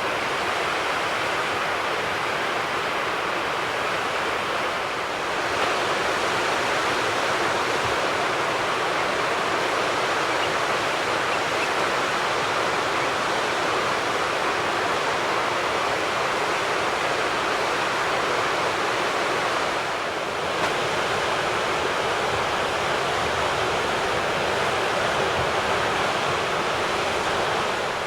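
Steady rush of flowing river water, an even hissing roar with no break.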